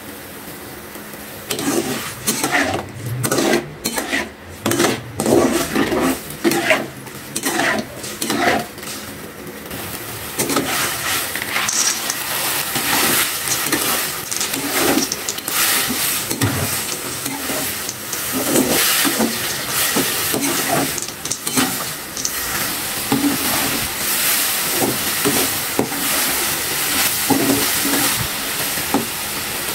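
A metal spatula stirs and scrapes in an aluminium wok of bubbling dark chilli sauce, then tosses fried peanuts and tempeh through it as the sauce sizzles down to a sticky glaze. At first the scraping strokes come one by one. About a third of the way in, a steady sizzle sets in under continued stirring.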